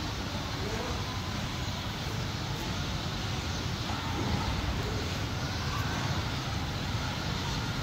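Steady low rumbling noise with no clear events in it.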